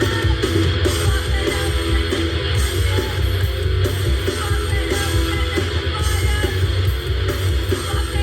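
Garage shock-rock song playing: distorted electric guitar strumming over bass and drums.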